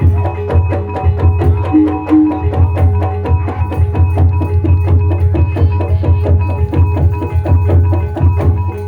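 Ebeg accompaniment music: a traditional Javanese percussion ensemble playing a fast, even run of drum strokes over held, ringing metallic tones.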